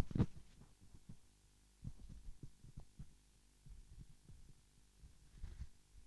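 Low, irregular thumps and rumble of handling noise, with a louder thump right at the start.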